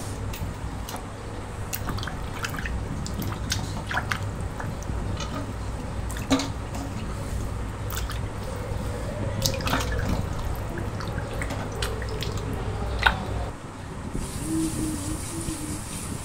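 Hands rubbing and swishing fish in a steel bowl of water: irregular splashes, drips and small knocks against the metal. A little before the end this gives way to a steady high hiss, a spice paste frying in a pan.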